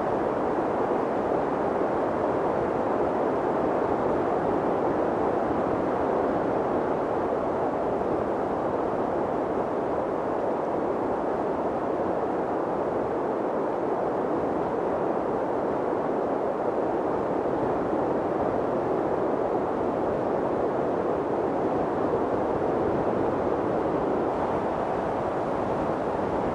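Steady wind noise: a constant, even rushing sound with no gusts, breaks or other sounds.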